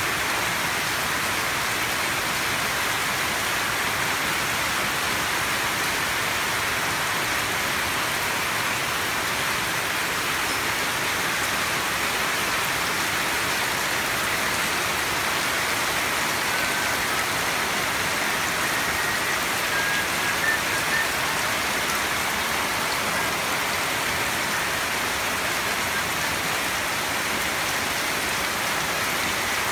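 Steady, unbroken rushing noise of falling or running water, most like rain. A few faint short high chirps come through a little past the middle.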